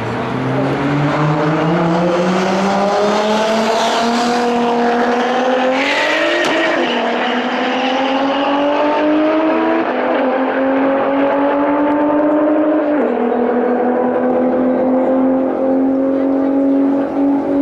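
Nissan GT-R and Toyota Supra drag cars running a full-throttle pass, engine pitch climbing steadily through each gear and dropping at three upshifts.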